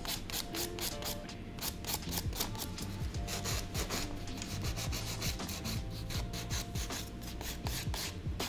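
Handheld nail file rubbing back and forth across an acrylic nail in quick, even strokes, about four to five a second, shaping the nail into a tapered square.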